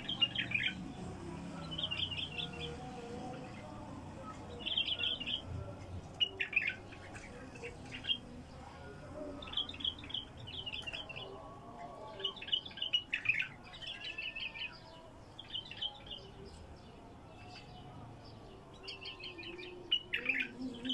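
Wild bulbul singing in a cage: short phrases of quick, high chirping notes, some dropping sharply in pitch, repeated every second or two.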